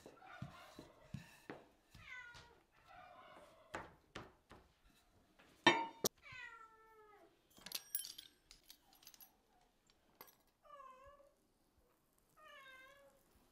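A cat meowing about four times, each call falling in pitch, the longest about a second long a little past the middle. A sharp knock comes just before that long meow, with light taps and clicks around it.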